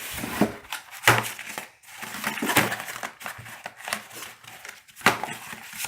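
Paper instruction leaflets and packaging being handled and rustled, with two sharp knocks, one about a second in and one near the end.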